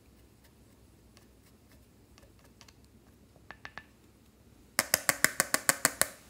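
Faint scratchy ticks of a small spatula scraping pressed blush powder, then, nearly five seconds in, a quick run of about ten sharp taps as the plastic makeup palette is knocked against the rim of the glass dish to shake the powder out.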